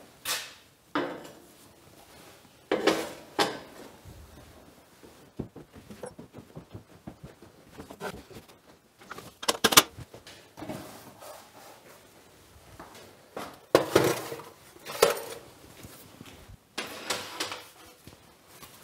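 Steel offcuts and profile pieces being set down and pushed onto sheet-steel shelves: irregular metallic clanks and clinks, some ringing briefly, the loudest about halfway through.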